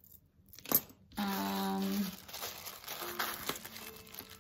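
Thin clear plastic bag crinkling as jewelry is unwrapped from it by hand. There is a sharp click just under a second in and a steady hum lasting about a second just after.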